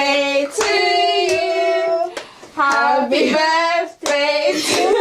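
Women's voices in long, high, held notes, like singing, with a few hand claps.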